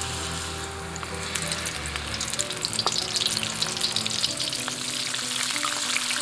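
Batter-coated shrimp frying in hot oil for tempura: a steady sizzle full of fine crackling pops, which grows busier after about a second.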